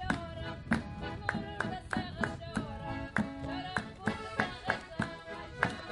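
Accordion playing a lively traditional folk tune, with a bass drum beating steadily about three times a second and hands clapping along.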